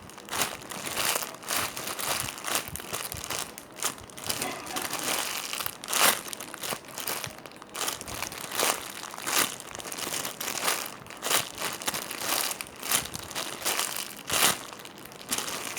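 Irregular crinkling and crackling with many sharp clicks as a pink monkey squishy toy is handled and squeezed to show it rising slowly.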